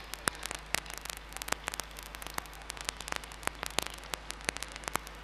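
Irregular crackling static, several sharp clicks a second, over a steady electrical mains hum.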